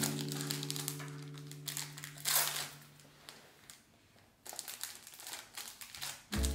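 Clear plastic packaging sleeve crinkling and rustling as a print is slid into it and handled, in irregular crackles with the loudest rustle about two seconds in. A held chord of background music fades out over the first two seconds.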